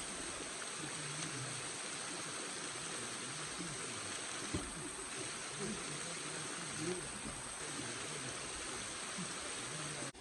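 Steady rush of falling water from a waterfall, with faint voices of people underneath. It cuts off suddenly near the end.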